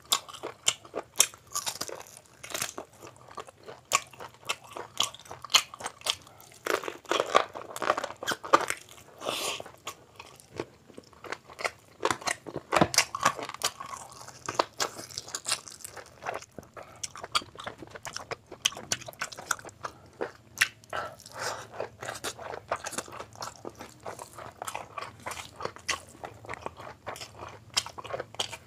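Close-up sounds of a man eating chicken biryani and a chicken leg piece by hand: biting, tearing and chewing, a dense, irregular run of sharp crunches and clicks. There are thicker stretches of chewing about a quarter and half way through.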